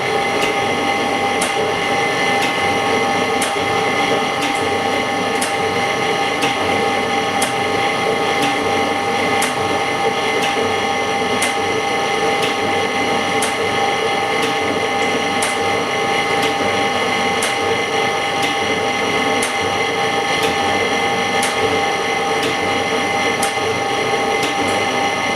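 Semi-automatic LCD separator running, its motor drawing a steel cutting wire through the glue layer to part cracked front glass from the LCD: a steady mechanical whine with a light click about once a second.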